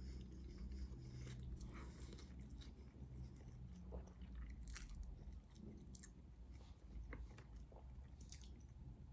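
Faint close-up chewing of a mouthful of spaghetti, with small wet mouth clicks.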